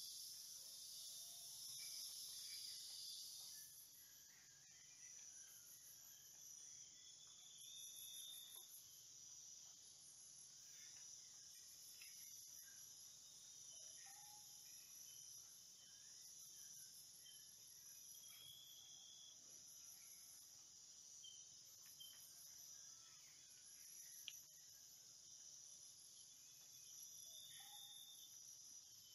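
Faint insects chirping: a steady high trill with a second, higher trill pulsing on and off, and a few short faint chirps. One faint click about 24 seconds in.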